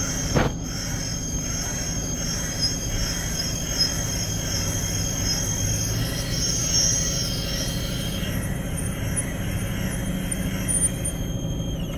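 Valve seat cutting machine's spinning cutter working a valve seat in a Toyota 22R cylinder head, with a steady high-pitched metal squeal over the machine's running noise. Part of the squeal drops out about eight seconds in. There is a sharp click about half a second in.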